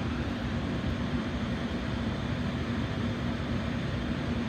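Steady background hum of running machinery or ventilation, with one constant low tone over an even wash of noise and no change throughout.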